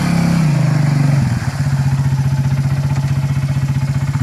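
ATV engine revving briefly, then settling about a second in into a steady, evenly pulsing idle.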